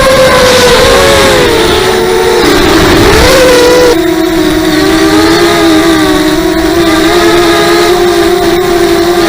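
Wind howling, a loud pitched moan that slides down in pitch over the first few seconds and then holds as two close, slightly wavering tones.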